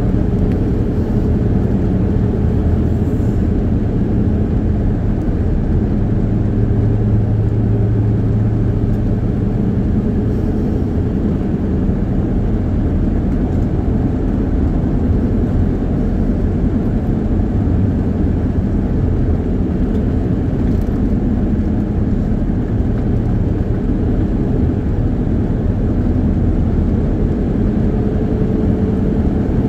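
Steady engine and road noise of a vehicle cruising on a paved road, heard from inside the cabin as a constant low rumble.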